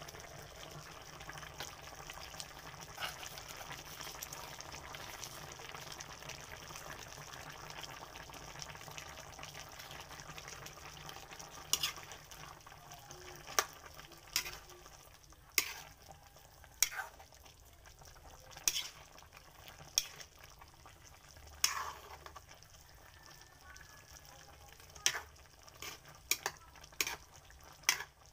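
Chicken pochero simmering in a wide metal pan, a steady bubbling hiss. From about halfway through, a metal ladle stirs it, knocking against the pan every second or two.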